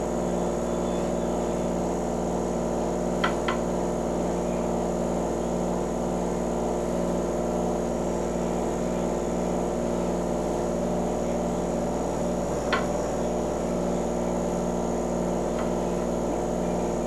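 A steady electrical hum made of several fixed tones, with a few light clicks as sweet potato slices are laid into a frying pan: two about three seconds in, one near the end.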